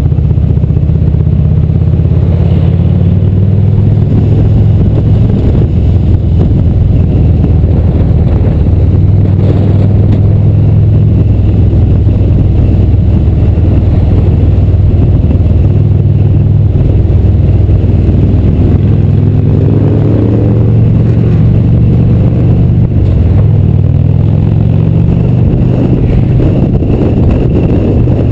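Harley-Davidson touring motorcycle's V-twin engine running steadily at cruising speed, heard loud and close from the rider's seat.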